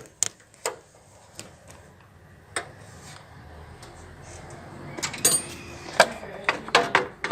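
Scattered sharp metallic clicks and clinks of hand tools and loose parts being handled during engine work, sparse at first and coming more often in the second half, over a low background noise that rises partway through.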